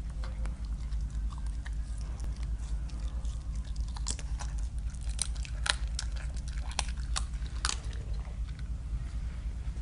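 Caracal chewing and biting into raw small birds, wet chewing with sharp crunches that come thickest from about four seconds in to about eight seconds in.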